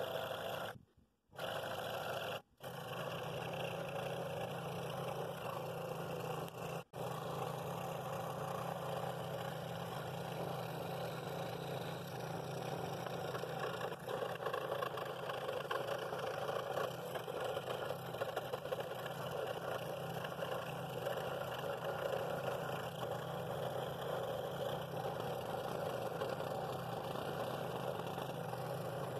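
Scroll saw running steadily, its blade cutting a ring free from a pine bowl blank, with a few brief breaks in the sound in the first seven seconds.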